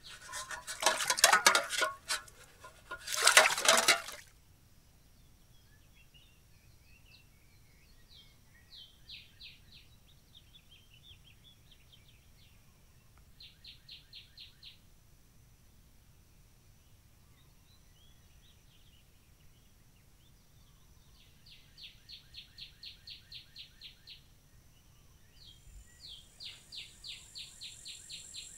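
A loud rushing noise in two bursts over the first four seconds. Then quiet outdoor ambience: a steady thin high drone and short runs of evenly spaced chirps every few seconds, typical of insects stridulating in summer grass, with a brighter high hiss near the end.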